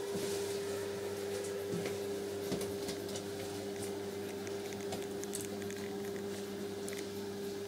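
Steady electrical hum with a higher tone over a lower drone, and a few faint clicks and taps.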